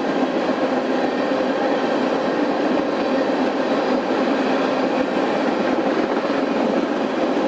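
A freight train of tank cars rolling past at close range, a steady continuous noise of wheels on the rails.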